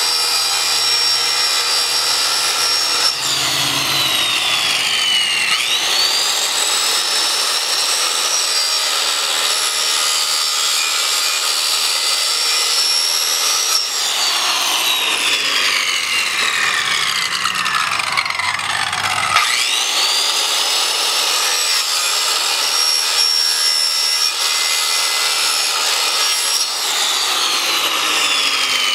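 Circular saw running and cutting into an Xbox 360 console's case. The motor's whine sinks in pitch as the blade bogs down in the cut and climbs back as it frees up, a few times over.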